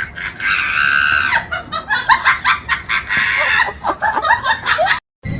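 Loud, agitated animal calls: two long shrill calls with rapid clicking, clucking-like notes between them. The sound cuts off abruptly near the end.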